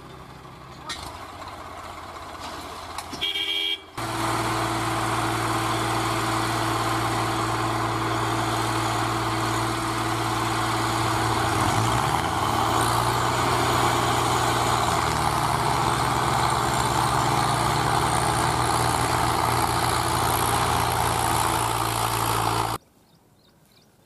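Diesel tractor engines running steadily while pulling loaded sugarcane trailers, with a short horn toot a few seconds in. The engine note shifts in pitch about halfway through, and the sound cuts off suddenly near the end.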